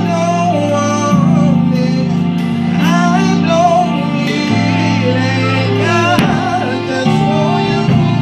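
Electronic keyboard playing held chords that change every second or two, with a voice singing melodic runs over them. There is a single sharp hit about six seconds in.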